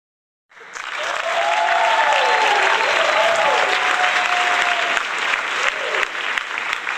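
Crowd cheering and applauding, starting abruptly about half a second in, with a voice calling out in long rising and falling notes above the noise.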